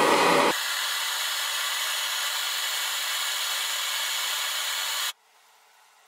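MAPP gas torch flame hissing steadily while heating an aluminium block from underneath, louder for the first half-second, then cut off suddenly about five seconds in as the torch is shut off.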